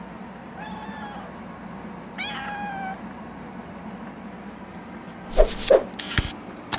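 Singapura cat meowing twice: a short faint meow about half a second in, then a louder meow that rises and then holds its pitch about two seconds in. Near the end, several short, loud sound-effect hits from an animated intro.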